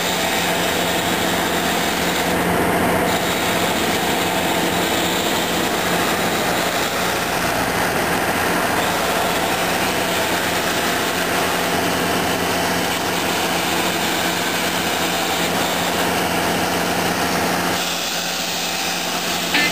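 Massey Ferguson 399 tractor's diesel engine running steadily as it pulls a forage harvester and silage wagon past. Near the end the sound turns slightly quieter: a McCormick MTX140 tractor running with its forage harvester.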